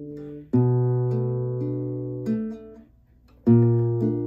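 Nylon-string classical guitar: a chord strummed about half a second in and left to ring for about two seconds, then after a short pause a second chord strummed near the end.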